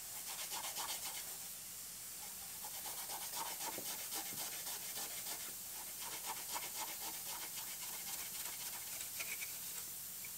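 A red abrasive scuff pad rubbed back and forth by hand over a car's sheet-metal rocker panel, a quiet steady scratching. It is scuffing the metal so that primer will stick and the paint won't peel.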